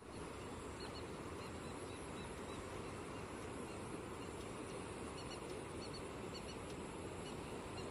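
Steady outdoor rush of the flood-swollen Teesta river's fast-moving water mixed with wind, with faint short high bird calls scattered through it.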